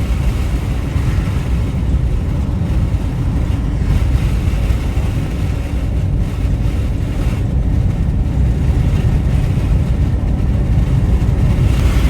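Steady low rumble of a van driving along a road: engine and road noise.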